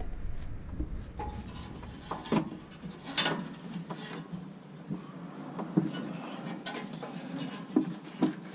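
Scattered light metallic clinks, taps and rubbing, several short knocks a second or so apart, as a clutch cable is worked up through a hole in a car's floorpan.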